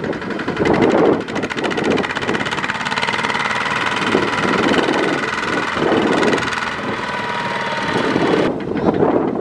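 Kubota RT140 single-cylinder diesel engine of a two-wheel walking tractor running hard with a rapid, even exhaust beat, straining under load as the tractor and its loaded rice trailer are stuck in mud. About a second before the end the brighter, hissier part of the sound cuts off abruptly, leaving a lighter beat.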